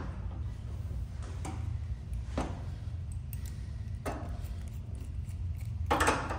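Faint metallic clicks, about one a second, as a chrome radiator valve tail is turned into the radiator by hand and then handled with an adjustable spanner, over a steady low hum.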